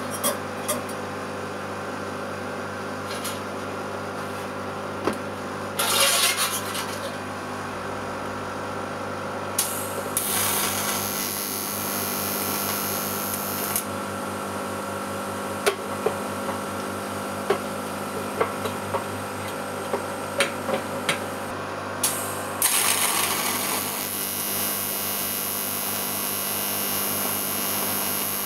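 TIG welder arc hissing and crackling over a steady hum from the welding set. There is a brief loud burst about six seconds in, the hiss grows louder about ten seconds in and again over the last six seconds, and irregular sharp clicks are scattered through it. This is a beginner's unsteady arc, with the tungsten electrode sticking in the work at one point.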